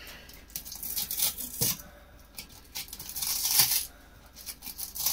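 Handling noise as the attachment head on a hand-held cleaning tool is swapped: a few short scratchy rasps and scattered clicks.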